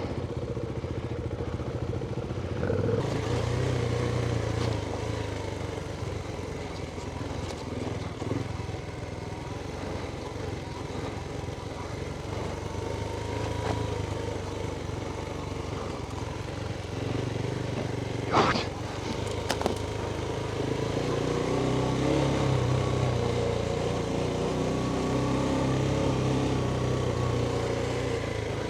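Adventure motorcycle engine running while riding an off-road trail, its pitch rising and falling with the throttle. One sharp knock about two-thirds of the way through, like the bike hitting a rock or bump.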